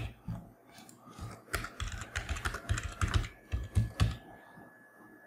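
Typing on a computer keyboard: a run of quick, irregular keystrokes that stops about four seconds in.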